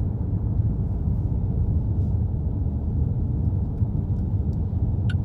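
Steady low rumble of a car driving, heard inside the cabin, with a brief high chirp just before the end.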